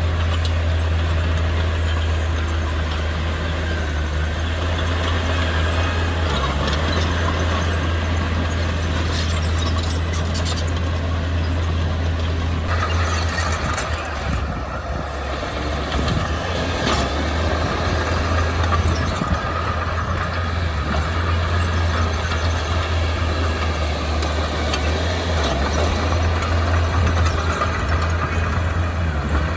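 Heavy earthmoving machinery, a bulldozer or dump truck, with its diesel engine running steadily in a deep continuous drone that dips briefly about halfway through.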